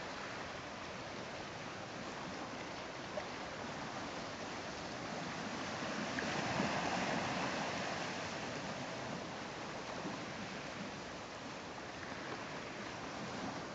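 Sea water washing and lapping against a rocky, seaweed-covered shore, a steady rush that swells up for a couple of seconds about halfway through.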